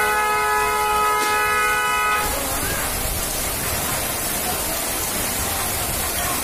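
A vehicle horn sounds one long, steady blast that stops about two seconds in, over the steady hiss of heavy rain pouring on a flooded street.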